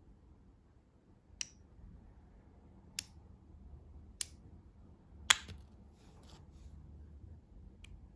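Small blue plastic toy pieces clicking as they are snapped together and pulled apart: four sharp clicks a second or so apart, the fourth the loudest, then a faint click near the end.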